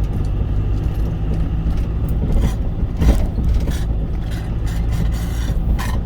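Cargo truck's engine running steadily with road rumble, heard inside the cab while driving, with a few short knocks.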